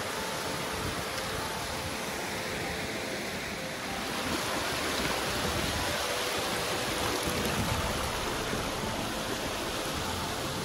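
Rushing water of a mountain stream: a steady, even roar of flowing water that grows a little louder about four seconds in.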